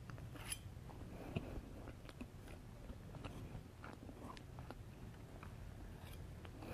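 Faint, close-miked chewing of chocolate cake, with small, scattered mouth clicks.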